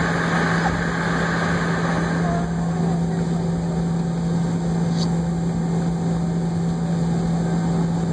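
Jet airliner cabin noise while taxiing, heard inside the cabin: a steady engine drone with a strong low hum over a rushing hiss. The higher part of the hiss eases off about two and a half seconds in.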